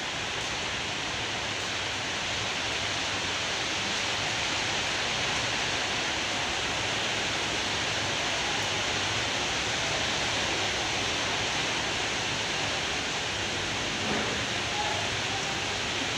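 Steady, even hiss of background noise with no distinct events, slightly louder in the middle; faint voices come in near the end.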